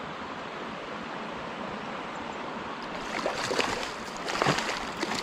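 Steady flow of a small stream, then a hooked wild brown trout splashing and thrashing at the surface in several irregular bursts from about three seconds in.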